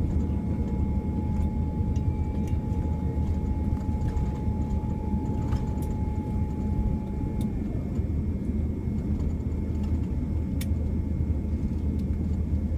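Steady low rumble of cabin noise inside a Boeing 787-9 airliner. A faint whine runs through it and drops in pitch about seven and a half seconds in, with a few light clicks.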